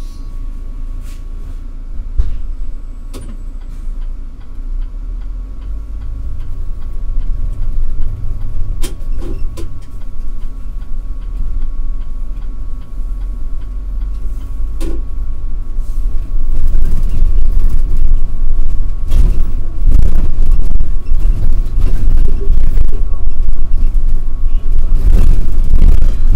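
City bus heard from inside at the front while driving: a steady low engine and road rumble that grows clearly louder about two-thirds of the way through as the bus picks up speed. A faint steady tone runs underneath, with a few short clicks.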